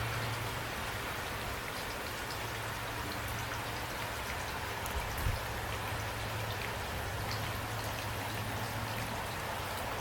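Steady rain falling, with scattered drop ticks over an even hiss and a steady low hum underneath. A brief low thump comes about five seconds in.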